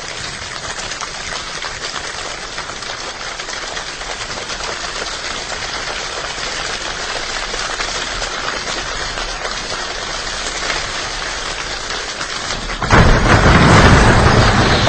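Steady rain falling, an even hiss. About thirteen seconds in, a sudden loud low rumble breaks in over it and carries on, like a clap of thunder.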